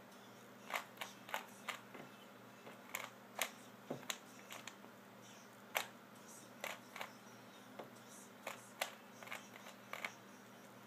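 Plastic 3x3 Rubik's Cube being turned fast by hand: a run of sharp, irregular clicks, two or three a second, as its layers snap round, over a faint steady hum.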